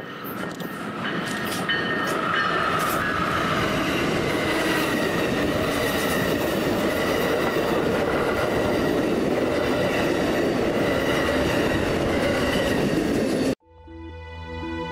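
Amtrak passenger train led by a Siemens Charger diesel locomotive approaching a grade crossing, its rumble building over the first two seconds and then holding steady. Near the end the sound cuts off suddenly and music begins.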